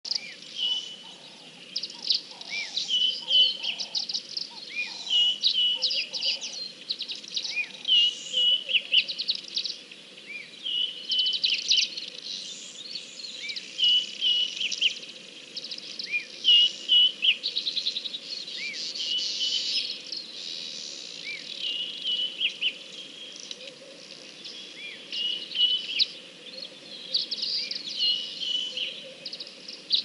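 Several wild birds calling and singing at once: short chirps repeated over and over, with rapid high trills in between. In the first few seconds a slower run of about eight low notes, roughly two a second, sounds under them.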